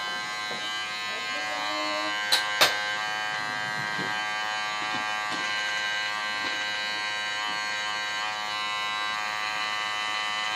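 Electric hair clippers with a comb guard running with a steady buzz while shaving up the side of the head. Two sharp clicks come a little over two seconds in.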